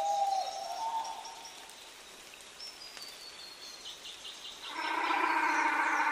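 Reconstructed call of the South Island giant moa: a loud, deep, pulsing call that begins about three-quarters of the way in and carries on. Under it run high chirps and trills of small songbirds, and near the start there are low gliding whistles.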